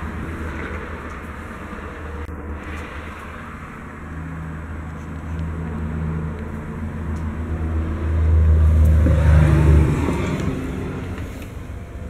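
Low engine rumble with a steady hum, swelling louder about eight seconds in and easing off about two seconds later.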